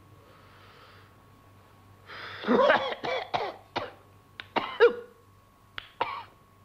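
A rakugo storyteller coughing hard several times in quick succession, after a soft breath, then once more near the end. It is an acted smoker's cough for a character who has been puffing tobacco all morning.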